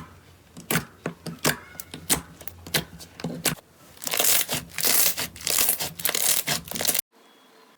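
Slime being handled by hand: a string of separate sharp sticky pops, then a denser run of crackling, cut off abruptly near the end.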